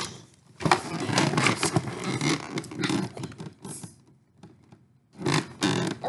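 Cardboard toy box and its packaging being handled, rustling and scraping with small knocks for about three seconds. After a short pause the handling starts again near the end.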